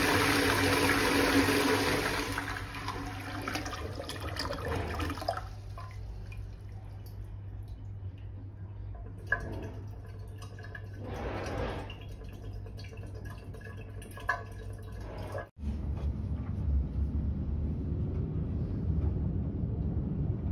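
Toilet flushing: loud rushing water that fades over about five seconds, followed by quieter water sounds as the bowl refills. A sudden cut near the end gives way to a low, steady rumble.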